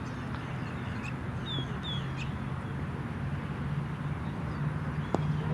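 Birds calling outdoors: a few short, falling chirps about a second and a half in, over a steady low hum and background noise, with a single click near the end.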